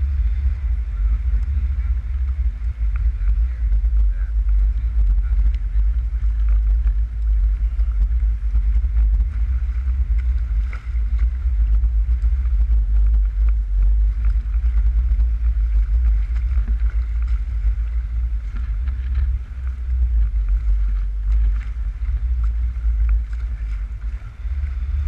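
Strong wind buffeting the microphone of a small boat crossing choppy water: a heavy, unsteady low rumble that does not let up.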